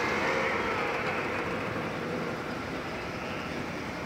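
Classic cars driving slowly past with their engines running: a steady, mixed engine noise that eases a little toward the end.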